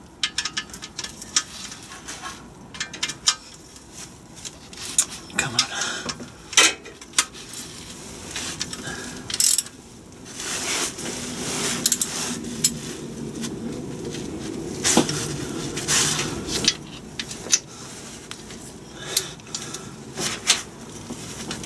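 Metal hand tools on engine bolts: a socket on an extension bar clinking and tapping against the bolts and the engine casting, in irregular clicks and knocks, as bolts around the crankshaft rear seal housing are worked.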